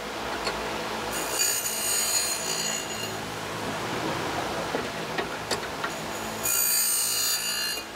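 Surface grinder running steadily, with two passes of about two seconds each in which a small metal part, hand-held in a chamfering fixture, is ground on the wheel with a high-pitched grinding sound. The passes chamfer the part's edges and take off a burr. Light clicks between the passes come from the part being handled against the fixture.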